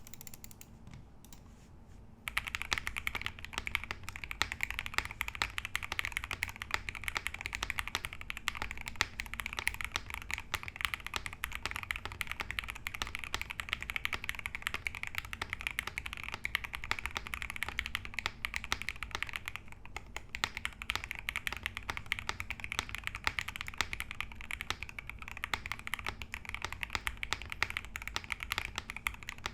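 Typing on a Corgi65 65% top-mount custom mechanical keyboard with lubed Alpaca linear switches, an aluminium plate and Geekark keycaps: a steady, dense stream of keystrokes that begins about two seconds in.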